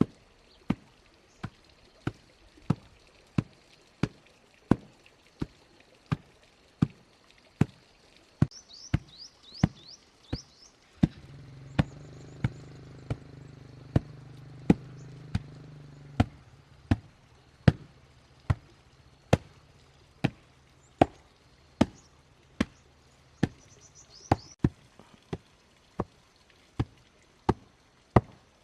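Steady, evenly spaced blows of a tool on wood, about three every two seconds, typical of chopping or hammering in coop building. A low hum joins for about five seconds near the middle, and birds chirp briefly twice.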